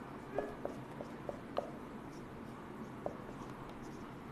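Marker pen on a whiteboard, faint: several short ticks and squeaks of pen strokes in the first second and a half, and one more about three seconds in.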